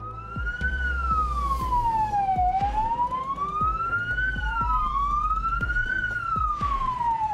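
Police car sirens wailing in slow rising and falling sweeps, each rise and fall taking a few seconds, with a second siren joining about four seconds in, over a low steady rumble.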